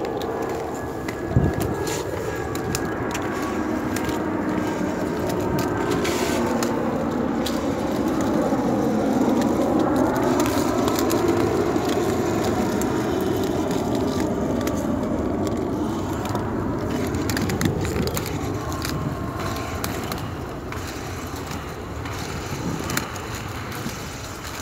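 Inline skate wheels rolling on a paved path: a steady rolling noise that swells louder in the middle, with one sharp knock about a second in.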